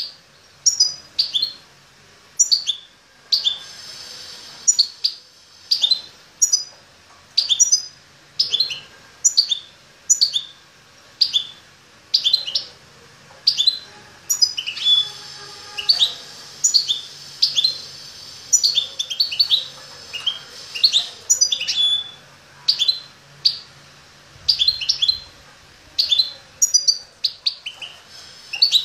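Caged songbird calling: short bursts of quick, high, downward-sweeping chirps, repeated about once a second.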